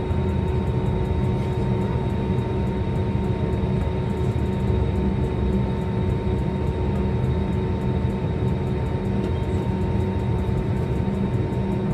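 Steady jet airliner cabin noise while taxiing: a low engine rumble with a constant whine held on a few steady pitches.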